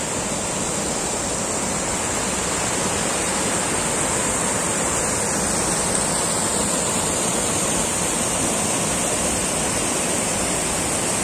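Shallow, rocky mountain river rushing and splashing over boulders and a low stone weir: a steady, unbroken rush of water.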